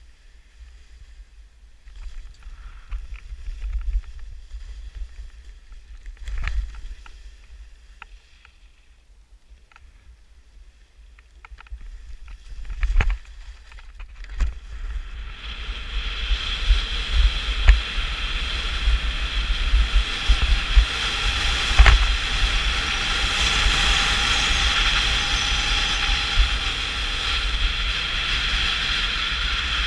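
Skis sliding downhill on snow, with wind buffeting the microphone as a low rumble throughout. The first half is quieter with a few knocks; about halfway through a steady rushing hiss of skis on groomed snow and air rushing past swells up and holds.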